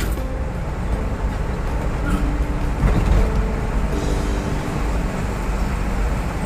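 Steady low engine and tyre rumble heard from inside a moving vehicle's cabin at highway speed.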